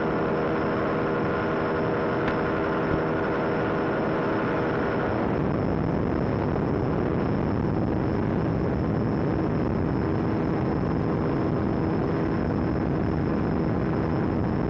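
Weight-shift microlight trike's two-stroke engine running under a heavy rush of wind over the microphone. The engine's steady note fades about five seconds in, leaving mostly wind noise.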